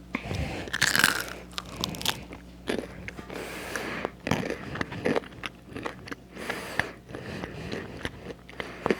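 A person biting into and chewing crispy fries close to the microphone, with many short crunches.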